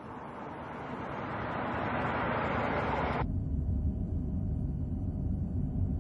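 A car drives along a road, its engine and tyre noise growing steadily louder. About three seconds in it switches abruptly to the low, steady rumble of the engine and road heard from inside the car's cabin.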